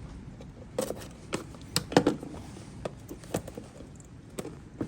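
A new ignition coil pack being handled: a scattering of light clicks and knocks, about seven in all, the sharpest about two seconds in.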